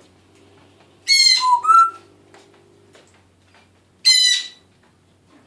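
Young Congo African grey parrot giving two short scratchy calls, the first ending in a brief rising whistle, the second about three seconds later.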